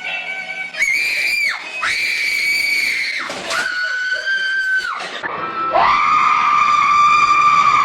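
A person screaming: a run of long, high-pitched screams, one after another, each held for a second or two at a different pitch.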